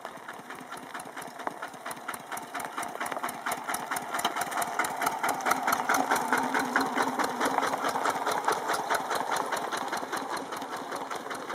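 Single-cylinder diesel engine of a two-wheel walking tractor hauling a trailer loaded with rice straw, running with a fast, even chug. It grows louder as it comes near, is loudest a little past halfway as it passes, then fades as it moves away.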